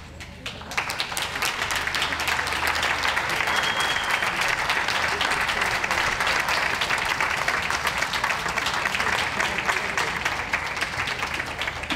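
Ringside audience applauding. The clapping builds up about a second in, holds steady, and eases off near the end.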